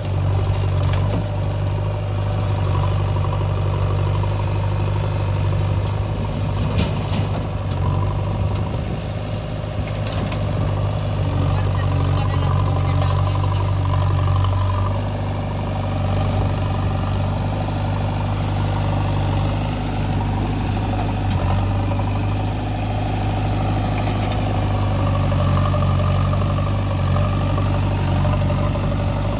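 Diesel engine of a JCB 3DX backhoe loader running steadily under work, its note shifting about halfway through.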